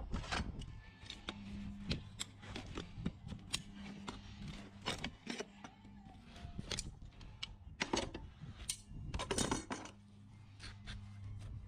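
A farrier's hoof rasp scraping across a horse's hoof wall in short, irregular strokes, about one or two a second, with a quicker run of strokes about nine seconds in.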